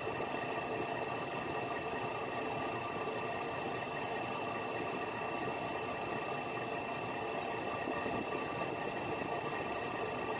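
A fishing boat's engine running steadily, an even drone with a thin, steady high whine over it.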